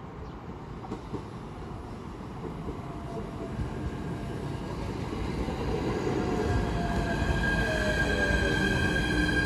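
JR East E129 series electric multiple unit pulling into a station and slowing, growing louder as it comes alongside: wheel and rail rumble, with a motor whine gliding down in pitch as it brakes and a steady high whine.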